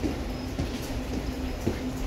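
Inside an REM light-metro car: a steady low rumble with a faint hum and a few light knocks.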